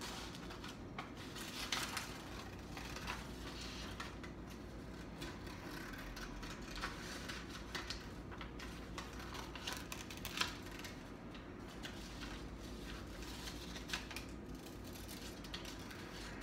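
Scissors cutting through paper, with scattered irregular snips and paper rustling, the sharpest snip about ten seconds in.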